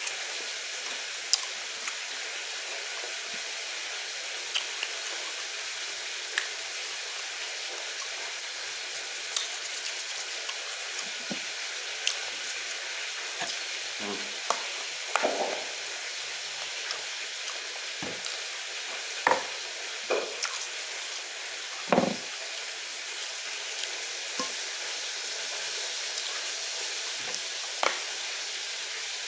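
Crunching and chewing on crisp fried fish, bones and all: scattered short crunches and mouth clicks, more of them in the middle, over a steady hiss.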